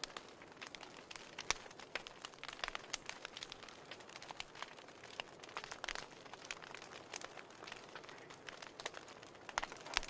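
Wood fire crackling in an open fireplace: irregular sharp pops and snaps over a soft hiss.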